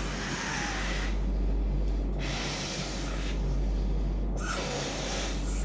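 A person blowing by mouth into the valve of an inflatable travel pillow to inflate it: three long, breathy blows about a second apart, with breaths drawn in between.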